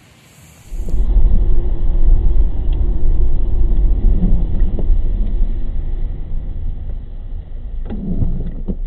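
Steady low rumble of a car driving on rain-wet roads, heard through a dashcam mounted behind the windshield. It starts abruptly about a second in, and a few sharp clicks come near the end.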